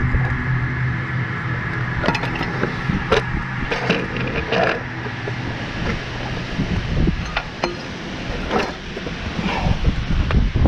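Irregular scrapes, knocks and clinks of a tripod, an axe and a body against rock as a person crawls out of a narrow boulder passage, over a steady low rumble.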